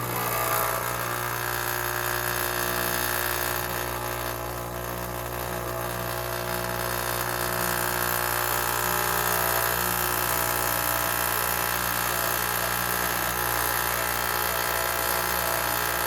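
Dual-boiler espresso machine's pump running steadily during a manually started shot, pushing water through the coffee in the portafilter: a continuous hum of several steady tones.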